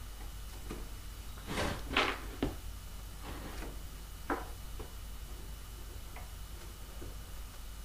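Faint handling sounds of a cotton swab and hands working glue into hinge holes in a covered wooden control surface: a few short scrapes about two seconds in and a single click about four seconds in, over a low steady hum.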